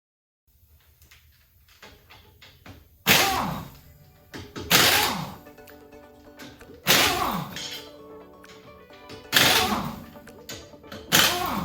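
Impact wrench run in five short bursts on a wheel's lug nuts, each burst starting sharply and winding down with a falling pitch, over background music.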